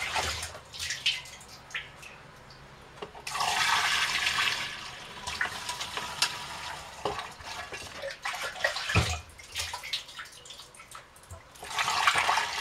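Fermented jam mash (braga) poured from a plastic jug through a plastic funnel into a glass carboy, splashing in runs that are loudest about three seconds in and again near the end. There are clicks and knocks from the jug between the pours.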